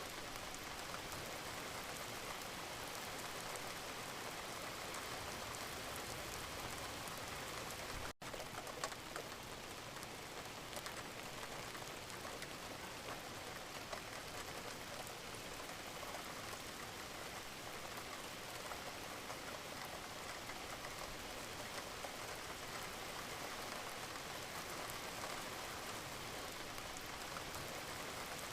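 Steady rain falling, a dense even hiss with faint patter of individual drops. It cuts out for an instant about eight seconds in, then carries on.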